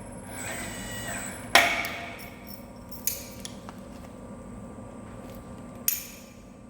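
Three sharp metal-on-metal clanks, the first the loudest, each ringing briefly, over a steady low workshop hum, as steel parts are knocked and handled while a large steel pin is set up in a lathe.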